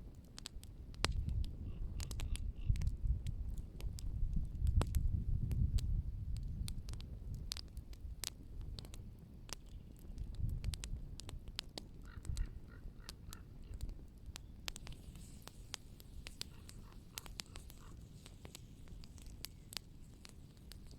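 Wood fire crackling, with many sharp irregular pops and snaps. A low rumble sits underneath, stronger in the first half and fading in the second.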